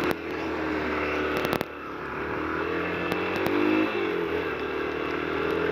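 Yamaha YBR Factor 125's single-cylinder engine pulling away and accelerating, its pitch rising and falling back twice, with a few sharp clicks. The engine is misfiring from water in the spark plug cable.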